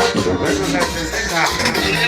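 Cumbia music played loud over a sonidero's sound system, with a steady bass line and percussion.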